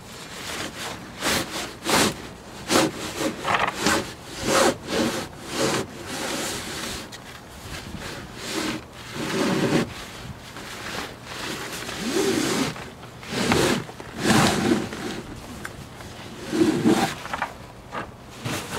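A large fabric drawstring bag being tugged and dragged out of a sailboat's cockpit locker: irregular rustling and scraping of cloth against the locker walls, with dull knocks as it shifts.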